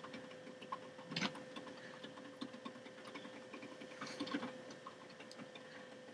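HO-scale model train layout with the GP40-2 and 4449 stalled on a grade: a faint steady hum with scattered light clicks and ticks, a couple of them louder about a second in and about four seconds in.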